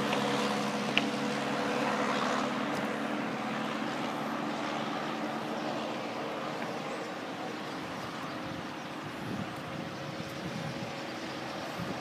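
Road traffic: a vehicle engine humming steadily with the rush of tyres and air, slowly getting quieter, with a small click about a second in.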